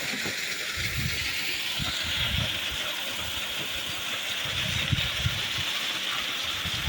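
Waterfall fed by melting snow rushing steadily and loudly, with uneven low rumbles underneath.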